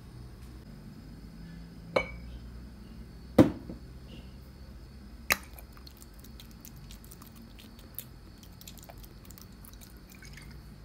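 Kitchenware knocking and clinking three times, the loudest about three and a half seconds in, then a scatter of light ticks as ingredients are laid over fish in a metal cooking pot.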